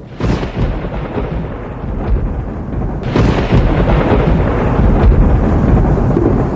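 Loud, rumbling wind noise buffeting the microphone, with no pitch to it, growing heavier about three seconds in.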